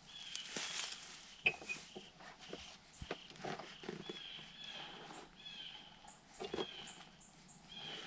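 Fabric rustling and light knocks from handling a pop-up camouflage ground blind, with a sharp click about a second and a half in. Small birds chirp repeatedly in the trees.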